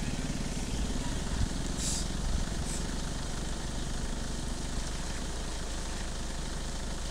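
An engine running steadily at idle. There are a couple of brief thumps and two short hissing bursts about two seconds in.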